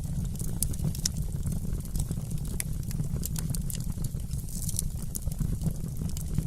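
Wood fire burning in a fireplace, crackling with many small, irregular sharp pops over a steady low rumble.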